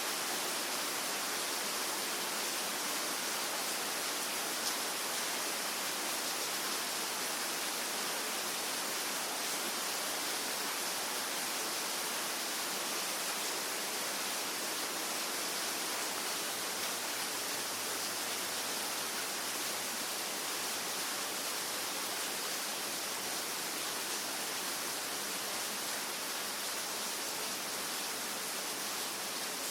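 Steady rain falling, an even hiss without breaks or single drops standing out.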